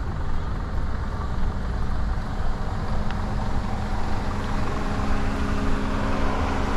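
A motor vehicle's engine running nearby with a steady hum over road traffic noise.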